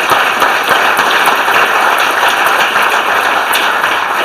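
Audience applauding: many hands clapping in a dense, steady run.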